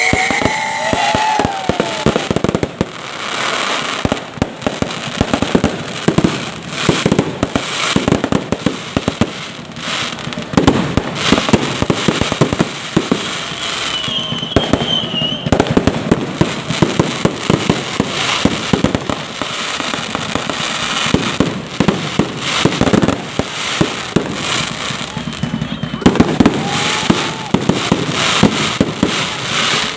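Fireworks display: a dense, irregular run of bangs and crackling bursts, with a few brief whistles among them.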